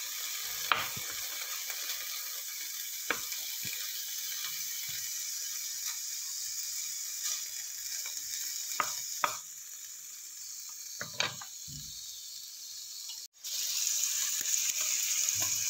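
Small pieces of pork belly sizzling in a little oil in a nonstick pan, rendering their fat, with a wooden spoon knocking against the pan now and then. The sizzle cuts out for an instant near the end and comes back louder.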